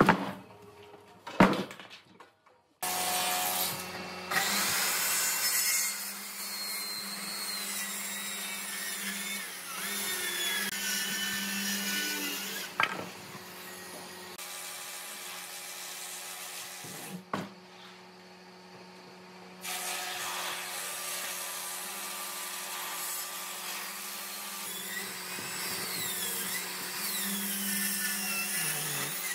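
Power tools running on timber in two long stretches, with a quieter break and a few sharp knocks between them. In the last stretch a Makita circular saw cuts along a thick live-edge wooden slab.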